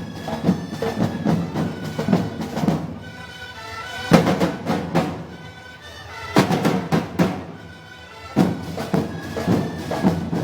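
Live band music: drums, snare and bass drum, striking steadily with louder accents every couple of seconds, under sustained held notes. Typical of a festival street band playing a pasacalle.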